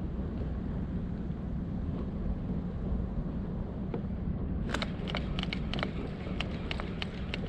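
Steady low rumble of wind buffeting an action camera's microphone. Near the end comes a run of irregular sharp clicks, several a second.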